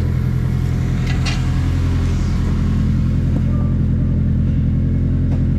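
Turbocharged Acura RSX's four-cylinder engine idling steadily, with a couple of light knocks about a second in.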